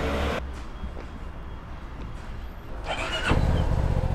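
Motorcycle engine idling with a low steady hum. It fades for a few seconds and then comes back louder, with a brief wavering pitched sound, like a short voice or cry, just before it does.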